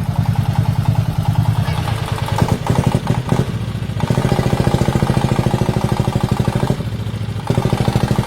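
Diesel engine of a homemade farm vehicle chugging with an even firing beat, revved up about halfway through, easing off briefly near the end and opened up again, as the vehicle strains with its rear wheels stuck.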